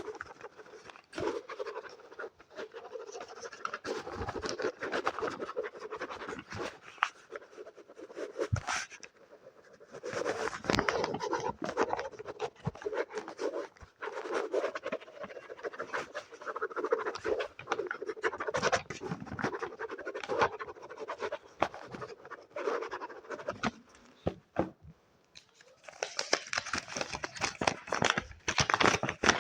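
Close-miked ASMR scratching and tapping on an object, a dense run of small scratches and clicks with brief pauses. Near the end it turns to a brighter, crinkly sound.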